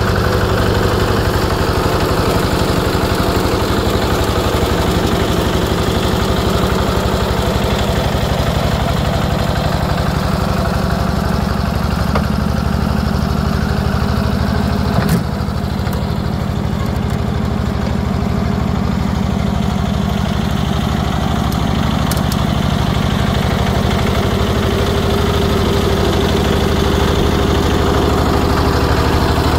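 Small compact tractor's engine running steadily at low speed while the tractor is driven. A single sharp knock sounds about halfway through.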